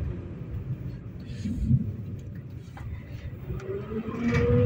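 71-911E "City Star" tram running slowly, with a low rumble and knocks from wheels and body and a short hiss about a second and a half in. About three and a half seconds in, the traction motors' whine starts and rises in pitch as the tram accelerates.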